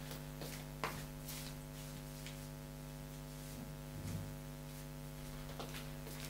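Steady electrical hum with a few faint knocks and rustles, about a second in and again near four and five and a half seconds.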